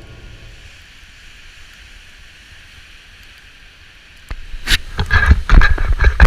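Storm wind buffeting the camera microphone in heavy, irregular gusts from about four seconds in, after a few seconds of steady, quieter rushing wind and wave noise.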